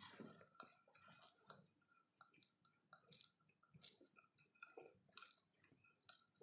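Faint, irregular crinkling of plastic cling film as a wooden rolling pin rolls over soft dough sandwiched inside it.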